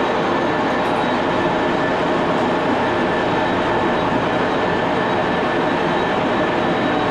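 An 83-year-old Baby Axelson engine lathe running steadily under power while turning an aluminum bar: a constant mechanical drone from its geared headstock and feed, with several faint steady whining tones through it.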